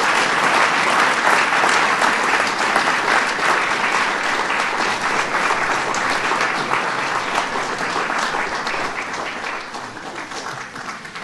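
Audience applauding, which slowly dies down over the last few seconds.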